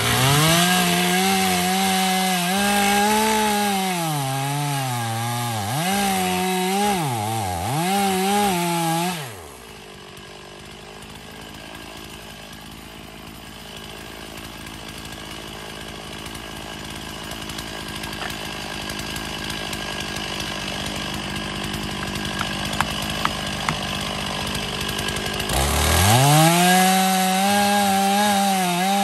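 Chainsaw cutting into the trunk of a standing dead red maple at full throttle, its pitch dipping again and again as the chain loads up in the wood. About nine seconds in it drops to a low idle, and near the end it is revved up and cuts again.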